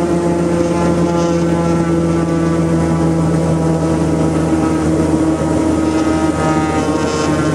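Turboprop engine running at high power, about 80% torque, on a ground run-up, heard from inside the cockpit: a steady drone of propeller and turbine tones that shift slightly lower near the end.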